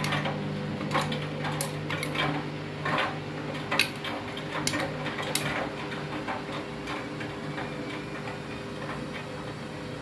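Front-loading washing machine drum turning with a steady motor hum, while the backpacks in the load knock and clatter irregularly against the drum, most often in the first half.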